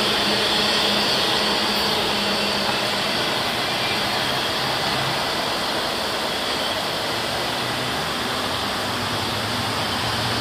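Freight train of autorack cars rolling away on the rails: a steady rushing noise of wheels and cars that slowly fades as the train recedes.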